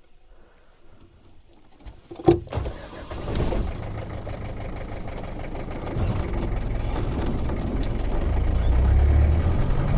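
A Land Rover's engine starting after a sharp click, then running and pulling away, its low rumble building steadily louder.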